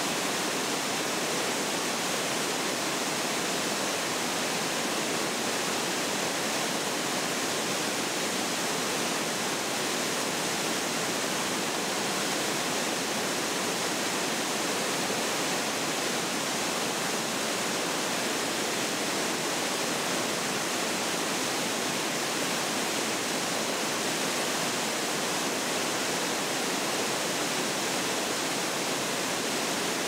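Steady rushing roar of water overflowing a dam's concrete spillway and cascading down the rock face below, a high-water release from a reservoir swollen by heavy rain.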